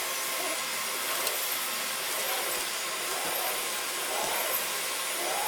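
Household vacuum cleaner running steadily.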